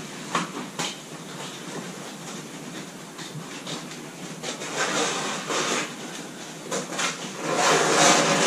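Old convertible roof covering being pulled and handled on the roof frame: a couple of short clicks at first, then two longer stretches of rustling and scraping, the second and loudest near the end.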